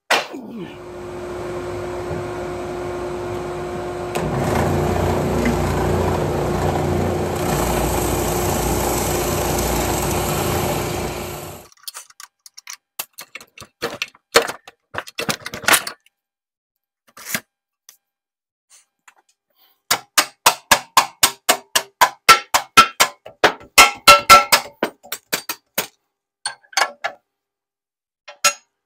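A benchtop power tool's motor runs with a steady hum for about eleven seconds, getting louder about four seconds in, then switches off. After that come scattered clicks and knocks, with a quick run of sharp taps in the second half.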